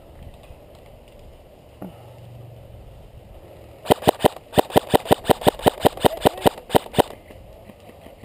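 Airsoft rifle firing a rapid string of about twenty shots, roughly seven a second, for about three seconds.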